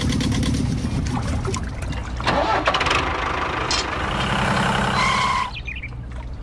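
A small engine running with a fast, even chug. It grows louder and noisier about two seconds in, then cuts off suddenly after a short steady high tone near the end.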